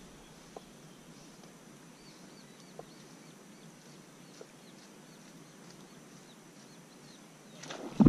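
Quiet open-air ambience with small birds chirping repeatedly in the distance, short high calls that drop in pitch, and a few faint soft clicks. Near the end a sudden louder noise rises.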